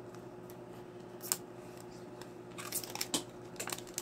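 Plastic nail-art sticker sheet and its clear cellophane sleeve crinkling and clicking under the fingers as the stickers are pushed back into the packaging. Scattered soft ticks, a sharp click about a second in, and a flurry of crinkling in the last second and a half, over a faint steady hum.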